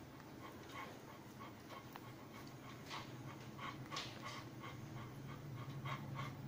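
Labrador retriever panting in quick, even breaths, about three a second, getting a little stronger in the second half.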